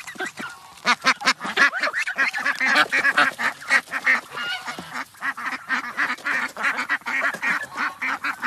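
A flock of Indian Runner ducks quacking over one another, a dense run of short calls that picks up about a second in and keeps going.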